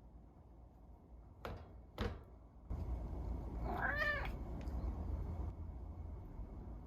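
A house cat gives one meow a little past halfway, its pitch rising and then falling. It comes after two sharp clicks.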